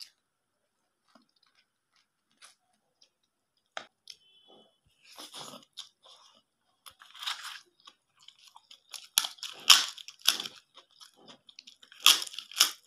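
Close-miked chewing of food by a person eating, with crisp crunches and bites. The crunches are sparse and faint at first, then louder and more frequent from about two-thirds of the way through.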